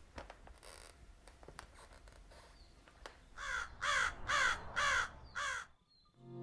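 A bird giving five harsh, cawing calls in a row, about two a second, each falling in pitch. Faint scattered clicks come before the calls.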